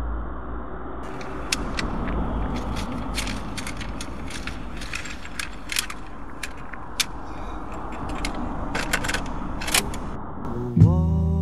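Low, steady rumble of a moving car heard from inside the cabin, with a run of sharp plastic clicks and rattles as a hand rummages in an open dashboard compartment. Just before the end the car stereo is switched on and music starts.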